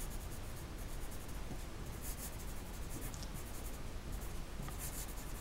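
Pencil writing on paper: light scratching in short runs of strokes with brief pauses between words.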